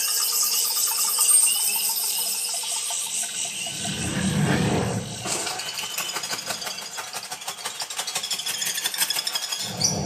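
Forest sound effects from a surround-sound demo clip, played through a Sonos Arc soundbar and picked up in the room: a low rumbling swell about four seconds in, then a fast, insect-like clicking rattle.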